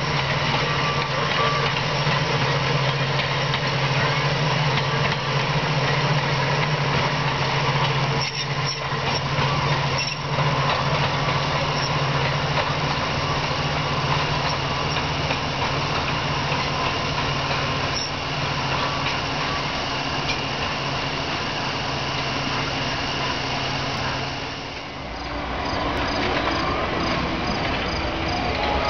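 Electric streetcar running along the track: a steady rolling rumble with a low hum. About 25 seconds in the sound changes abruptly and crickets chirp.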